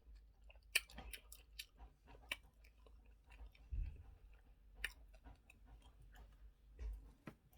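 A person chewing eba with okra soup close to the microphone: faint, irregular wet mouth clicks and smacks, with two soft low thumps about four and seven seconds in.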